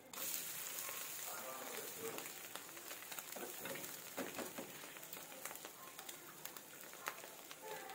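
Egg dosa sizzling on a hot dosa tawa just after being flipped, its egg side now frying against the pan, a steady crackling hiss. A few sharper clicks from the metal spatula against the dosa and pan come about halfway through.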